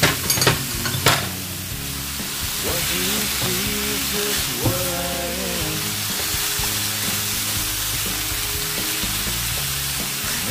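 Broccoli sizzling in a nonstick frying pan as it is stirred with a silicone spatula, a steady hiss with a few sharp knocks in the first second. Background music plays underneath.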